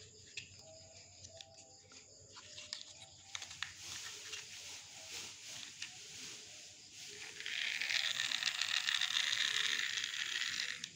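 Light plastic handling clicks of a toy train locomotive. About seven seconds in, its small battery motor and gears start a steady whir, the wheels spinning free while it is held off the track.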